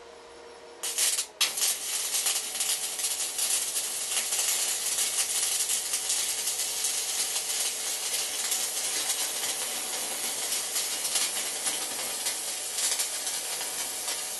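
Electric arc welding a bracket: the arc's continuous crackling sizzle, struck about a second in, broken off for a moment just after, then running steadily on.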